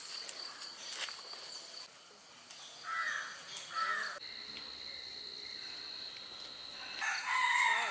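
Rural outdoor ambience: insects keep up a steady high-pitched drone, a crow caws twice about three seconds in, and a rooster starts crowing near the end.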